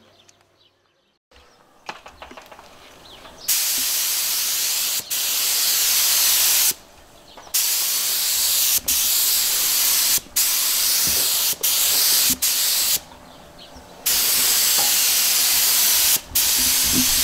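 Gravity-feed spray gun spraying primer, its air and paint hissing in long bursts of one to several seconds, broken by short gaps as the trigger is released and pulled again. The hissing starts a few seconds in.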